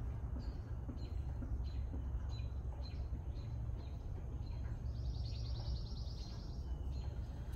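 Outdoor ambience: small birds chirping in short, repeated high notes, with a rapid pulsed trill about five seconds in lasting just over a second, over a steady low background rumble.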